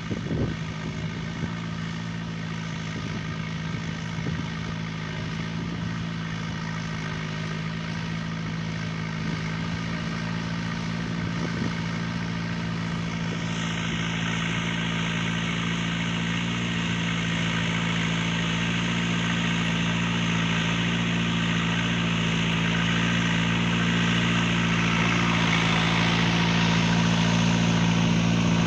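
John Deere 5085M tractor's four-cylinder diesel engine running at a steady pitch under load while pulling a moldboard plow through the field, growing louder as the tractor approaches.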